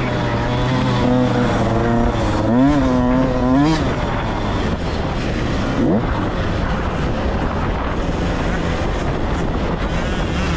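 Dirt bike engine heard from on the bike, revving up and changing pitch as it accelerates, then running rougher under a rushing noise of wind.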